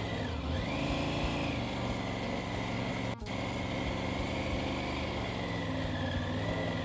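Triumph Tiger 900 Rally Pro's three-cylinder engine running at low revs as the motorcycle is ridden slowly through tight full-lock turns, the engine note dipping slightly and picking up again near the start and near the end.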